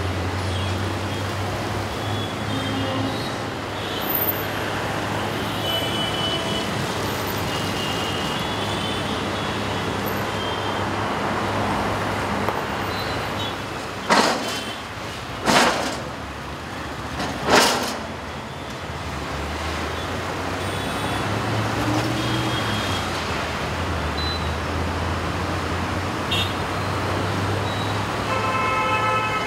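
Steady road traffic with a low engine rumble. Three short, loud bursts of hiss come in the middle, and a vehicle horn toots near the end.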